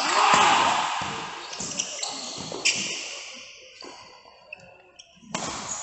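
Badminton play: several sharp hits of rackets on the shuttlecock, the loudest about two and a half seconds in, after a burst of noisy background in the first second.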